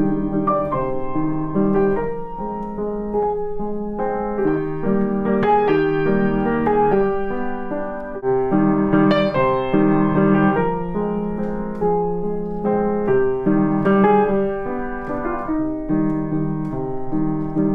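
Piano music, notes and chords following one another at an even pace.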